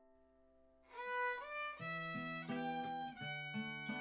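Instrumental background music: a held chord fades away, and about a second in a new piece starts, a melody of separate notes with low bass notes joining about two seconds in.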